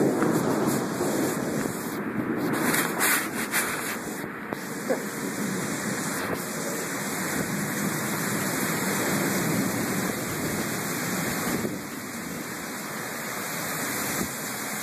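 Heavy thunderstorm downpour: a steady rush of rain pouring onto pavement.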